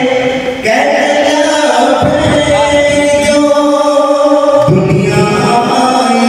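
A man's solo voice singing in a chant-like style through a microphone and loudspeakers, holding long, drawn-out notes that change pitch about a second in and again near the end.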